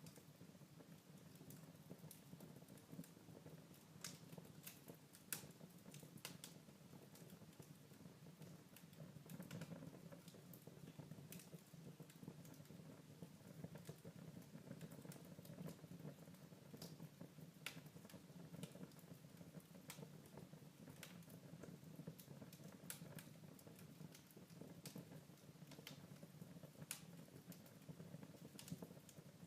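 Wood fire crackling faintly in a fireplace: scattered sharp pops and snaps at irregular intervals over a low steady rumble, with one louder pop about five seconds in.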